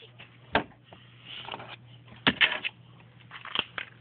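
Small toy figures and props being handled: a few separate clicks and light knocks, one about half a second in, a quick cluster around two and a half seconds, another near three and a half seconds, over a faint steady low hum.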